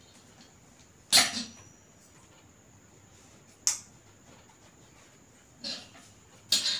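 Handling noise from a Zebronics Zeb-Lucid Pro microphone and its plastic spider shock mount being picked up and fitted together: four short knocks and rustles, the loudest about a second in.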